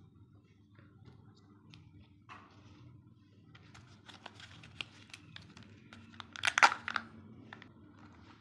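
Crinkling and tearing of a Kinder Joy egg's plastic wrapper being handled and opened: scattered crackles, with a louder burst of crinkling about six and a half seconds in.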